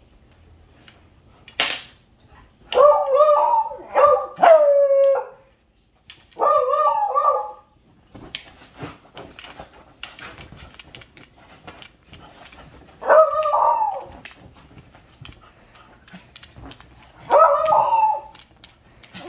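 Beagle puppies barking in about six short bouts during play, some barks drawn out into a falling bay, with light scuffling and scratching between bouts.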